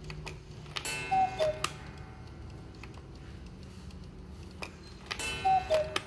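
Mechanical Black Forest cuckoo clock calling twice, about a second in and again about five seconds in. Each call is a falling two-note "cu-ckoo" from its bellows and pipes, with clacks of the mechanism, over the faint tick of the movement.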